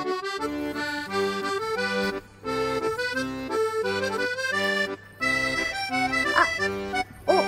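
Background music: an instrumental of held chords in a regular, bouncy rhythm. Near the end, a couple of short budgerigar chirps sound over it.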